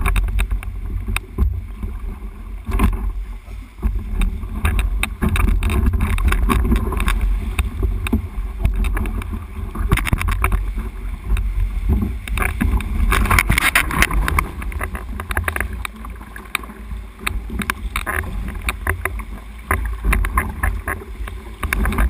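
Sea swell sloshing and splashing around a kayak close to a cliff, with a steady low rumble and many short drip and splash clicks; the water surges louder about ten seconds in and again a few seconds later.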